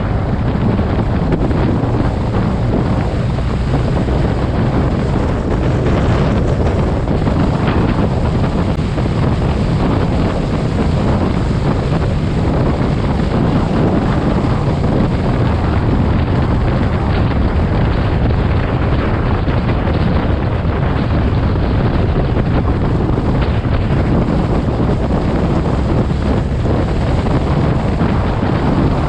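Steady wind rushing over the microphone of a camera on a moving motorcycle, with engine and road noise underneath.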